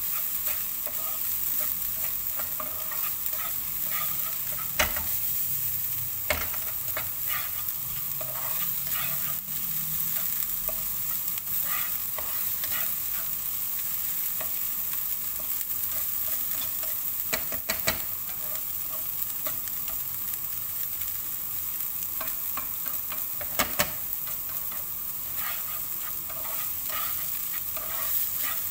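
Minced beef filling sizzling steadily in a pan as it stews, with a few sharp clicks of the stirring spoon against the pan.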